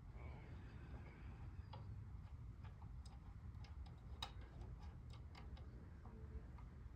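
Faint, irregular small clicks and taps of fan hardware and screws being handled while a blade is fitted to a ceiling fan, over a low steady hum.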